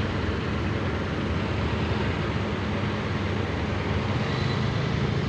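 Diesel engines of a large coach and a truck idling close by, a steady low rumble.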